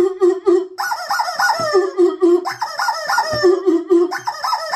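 Rubber squeeze chicken squawking again and again, in quick runs of two or three honks about every second and a half.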